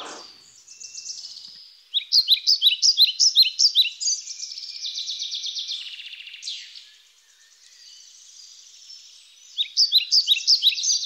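A songbird singing: quick runs of short, sharp repeated chirps, about two seconds in and again near the end, with fainter twittering between.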